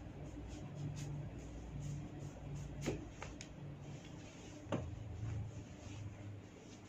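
Cracking pops from a hair-and-neck cracking massage: two sharp pops, the second about two seconds after the first, among fainter crackling ticks.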